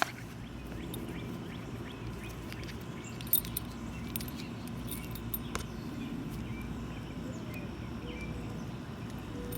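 Southord electric lock pick gun running, its vibrating pick buzzing steadily against the pins of a Master Lock No. 3 laminated padlock, with a few sharp clicks of metal on metal.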